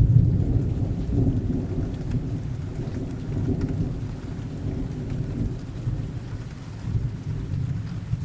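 Rain-and-thunder sound effect: rain falling with a low, rolling thunder rumble, loudest near the start and easing off.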